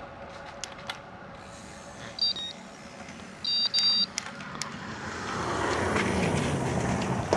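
A bicycle computer's electronic beeps: one short beep, then a quick double beep, the rear-radar warning of a vehicle closing from behind. Then a car comes up and passes close, its note dropping in pitch as it goes by.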